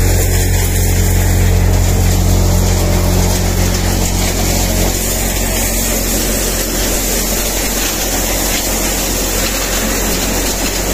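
Engine-driven four-fan cutter (thresher) running steadily: a low engine hum under a dense, loud rushing noise from the machine. About five seconds in, the low hum drops back while the rush carries on.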